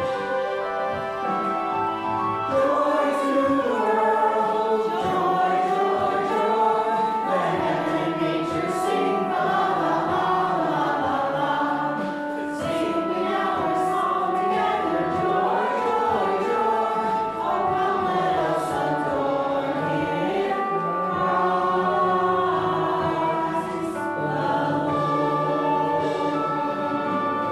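Choir singing, many voices together holding and moving between sustained notes.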